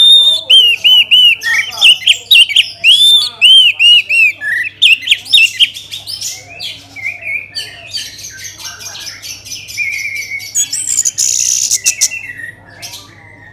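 Orange-headed thrush singing: a loud run of quick, repeated looping whistled notes for about five seconds, then softer, rapid twittering with a harsher rasping stretch near the end.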